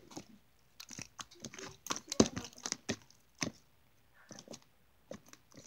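Hand squishing and stirring runny homemade slime in a plastic tub: a string of irregular wet squelches and sticky clicks, loudest about two seconds in.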